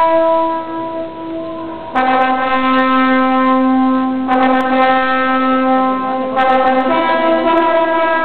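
Slow instrumental music of long held notes and chords, each lasting about two seconds before the harmony changes; it is a little softer through the first two seconds.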